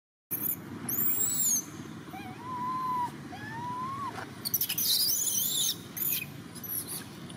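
A baby long-tailed macaque crying, a series of short rising-and-falling whimpering calls, with shriller squeals about a second in and again near the five-second mark. The crying of an infant begging to nurse while its mother refuses it.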